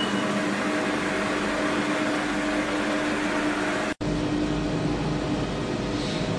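Electric arc furnace running with its arcs drawing kiloamp currents: a steady dense noise with a steady electrical hum. The sound drops out for an instant about four seconds in and then resumes, with a stronger low rumble.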